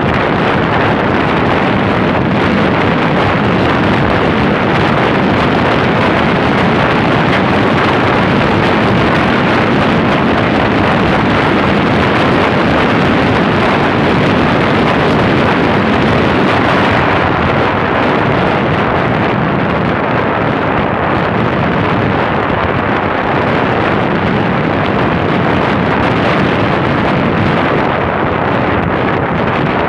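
Loud, steady wind rush on the microphone of a handheld camera on a moving motorcycle, with road and engine noise buried beneath it.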